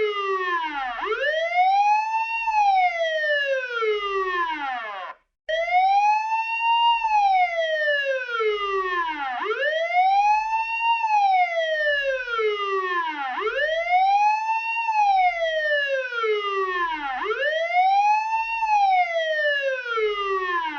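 Police car siren wailing, its pitch slowly rising and falling about once every four seconds. It breaks off for about half a second around five seconds in, then starts again.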